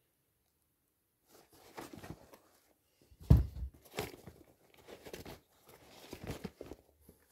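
Rustling and knocking as used sneakers are handled and shifted in a pile. A heavier thump comes about three seconds in.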